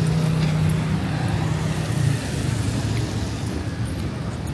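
Street traffic noise with a nearby motor vehicle engine running steadily; its low hum drops lower about two seconds in.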